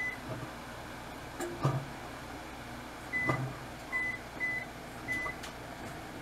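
Short electronic beeps from a kitchen appliance's keypad as its buttons are pressed: one beep at the start, then four more over the second half. A few knocks in between, the loudest about a second and a half in.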